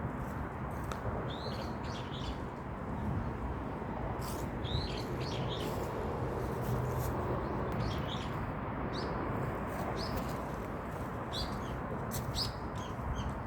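Small birds chirping: many short, quick calls, some in brief runs, over a steady low background hiss.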